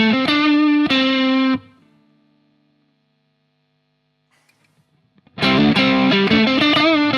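Electric guitar played through an overdrive pedal: a distorted riff that stops about a second and a half in and rings out briefly, then after about three seconds of near silence starts again.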